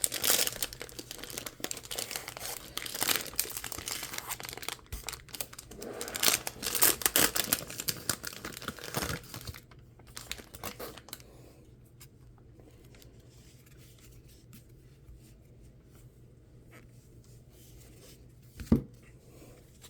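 A 2023 Bowman Draft super jumbo pack wrapper being torn open and crinkled for about ten seconds, then quieter handling, with a single thump near the end.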